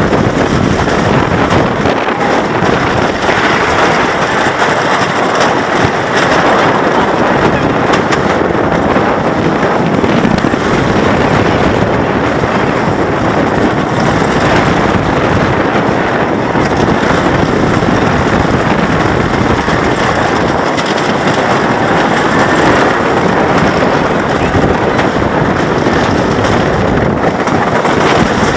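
Timber Wolf wooden roller coaster train running at speed along its wooden track, heard from the front seat: a loud, steady rumble and rattle of the wheels on the track, mixed with wind rushing over the microphone.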